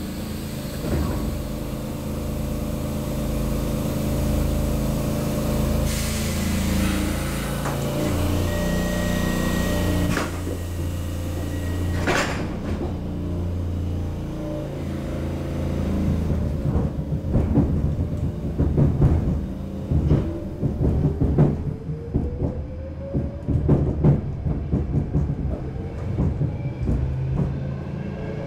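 Stockholm Metro C6 subway car standing at a platform with its onboard equipment humming steadily, and knocks around the middle as the doors slide shut. In the second half the train pulls away: a rising motor whine climbs under growing wheel clatter on the rails.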